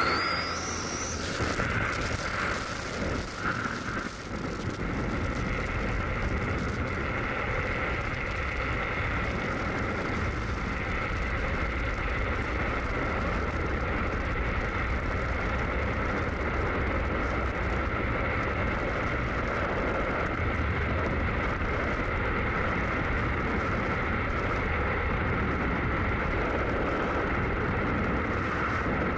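Freefall wind rushing over the microphone of a skydiver's camera: a steady, unbroken noise with a faint steady whistle in it.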